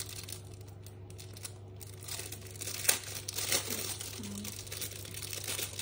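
Clear plastic wrapping crinkling and rustling as it is handled and pulled open, with a sharp crackle about three seconds in.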